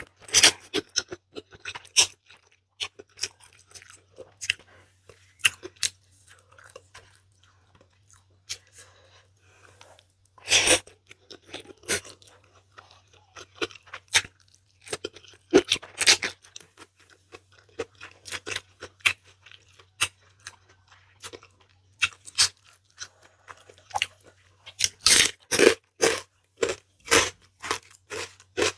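A person chewing a mouthful of spicy instant noodles and rice eaten by hand, with a steady run of short wet mouth smacks. A few louder smacks come about ten and sixteen seconds in, and a quick string of them near the end.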